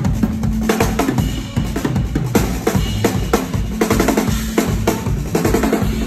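Live band music led by a Tama drum kit, with the kick drum, snare and cymbals keeping a steady beat over sustained low instrument notes.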